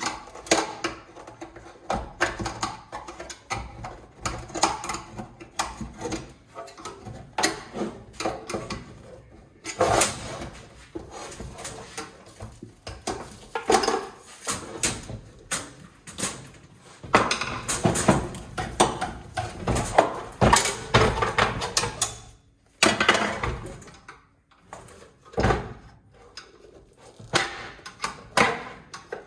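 Hand tools working metal parts loose from a gas instant water heater's copper heat exchanger: irregular clanks, knocks and scraping of metal on metal, with some louder strikes.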